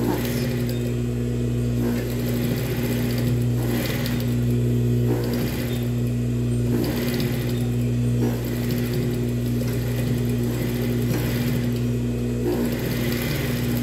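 Industrial straight-stitch sewing machine topstitching along a ruffle seam on cotton fabric, stitching in several short runs with brief pauses, over the steady hum of its electric motor.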